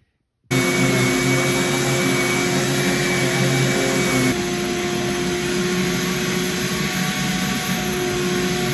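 A DeWalt random orbital sander sands a wooden game board with a dust-collection vacuum running, a loud, steady whir. It starts abruptly about half a second in, and a little over four seconds in it changes to a slightly quieter whir.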